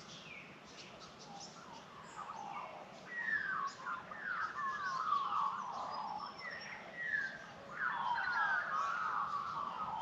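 Australian magpies singing: rich warbling phrases of gliding notes, the first starting about three seconds in and the second about eight seconds in, with fainter high chirps behind.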